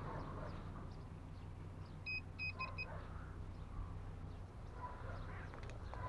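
Four short high electronic beeps about two seconds in, one and then three quick ones, over a steady low hum.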